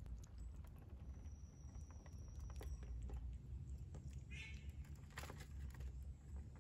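Ducklings pecking feed off a plastic dish, their bills tapping the plastic in scattered small clicks, with one short peep a little past the middle. A faint thin high whistle sounds briefly near the start, over a steady low rumble.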